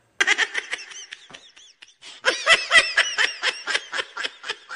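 Men laughing in quick repeated pulses. The laughter is lighter at first, dips briefly, then grows louder about two seconds in.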